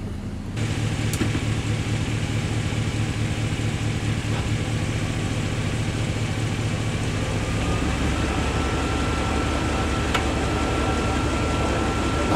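GM truck drivetrain running with the wheels turning, a steady low drone with a thin whine that comes in about two-thirds of the way through. A sharp click near the end is the NP241-C transfer case letting go of four-wheel drive high.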